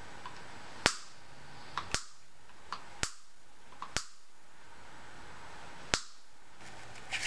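Side cutters snipping through wire mesh: about eight sharp clicks, each one a wire strand cut, a second or so apart with a longer pause before the last.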